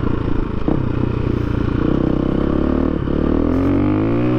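KTM 350 EXC-F's single-cylinder four-stroke engine running under load on the move, with a short knock about three seconds in, after which the revs climb steadily as the bike accelerates.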